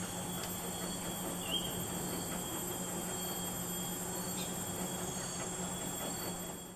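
Rainforest insects droning steadily in several high continuous tones over a steady low hum. There is a brief chirp about a second and a half in and a few faint clicks.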